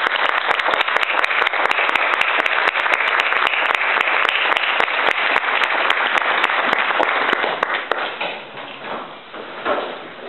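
Audience applauding steadily, then dying away about eight seconds in, leaving a few scattered last claps.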